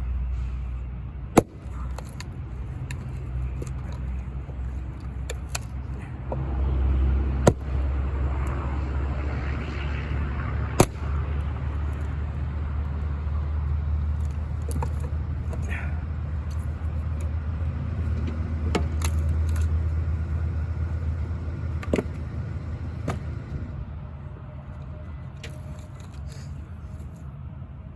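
Wood being chopped: a few sharp knocks several seconds apart over a steady low rumble, which swells a few seconds in and eases off near the end.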